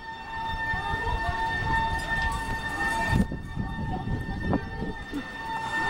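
Emergency siren sounding at a fire, held at one steady pitch rather than wailing, weaker about three seconds in and stronger again near the end, over a background of street noise.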